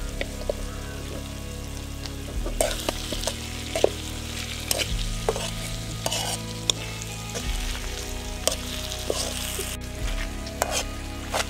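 Brinjal curry sizzling in a wide metal pan while a metal spatula stirs it, scraping and clicking against the pan again and again. A steady low hum runs underneath, changing pitch every two to three seconds.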